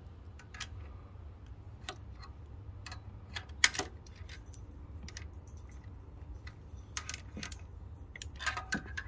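Scattered, irregular metallic clicks and clinks of hand tools and small parts while new fuel injectors are being fitted and tightened down, the loudest clink a little over three and a half seconds in. A low steady hum runs underneath.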